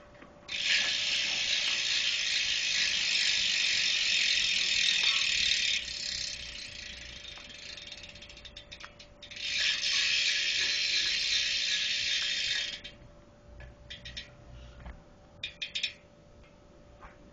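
Black Label BMX rear hub ratcheting as the wheel spins freely: its pawls click in a loud, fast buzz twice, the first spin slowing into separate clicks before the wheel is spun again.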